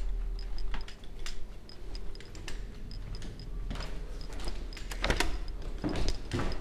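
Footsteps and the rubbing and knocking of a body-worn camera as the wearer walks through a house, scattered clicks at first, the steps coming heavier and closer together about five seconds in.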